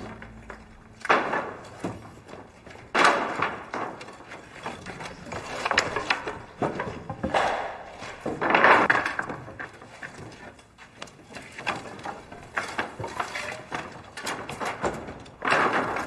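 Wooden planks and rubble being shifted and dropped: irregular thuds, knocks and scraping clatter, loudest about three seconds in, around nine seconds in and near the end.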